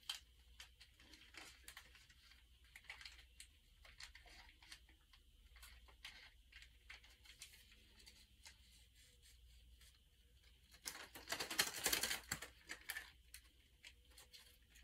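Small plastic packaging handled by hand: faint scattered clicks and rustles, then a louder burst of crinkling and tearing about eleven seconds in as the bag is pulled open.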